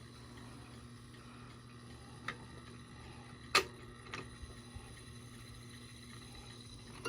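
Quiet room with a low steady hum and a few isolated sharp clicks, the loudest about three and a half seconds in.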